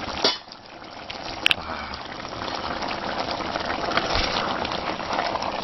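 Thick egusi soup bubbling in a pot as it cooks. There is a short knock just after the start, and a sharp metallic clink with a brief ring about a second and a half in.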